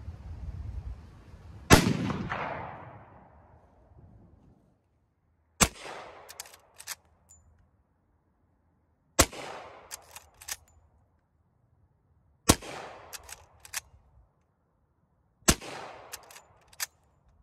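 Five single gunshots at a slow, even pace, about one every three to four seconds, each with a short echo trailing after it and a few lighter clicks close behind.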